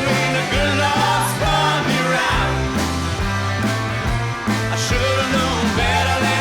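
Background rock music with a bass line stepping between held notes and a melody line above it.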